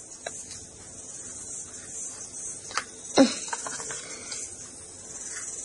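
A few faint clicks, with a short falling voice-like sound about three seconds in, over a steady background hiss.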